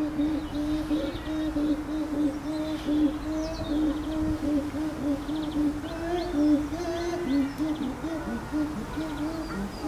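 Female chimpanzee giving a long run of low, rhythmic hoots, about three a second, at a nearly steady pitch that lifts slightly in the middle. The calling comes from an agitated chimp.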